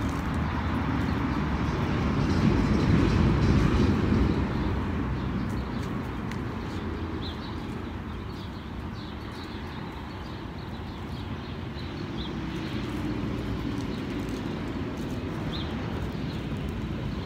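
Low outdoor traffic rumble that swells for a couple of seconds early on, like a vehicle passing close by, then settles to a steady background. A few faint, short, high chirps sound over it.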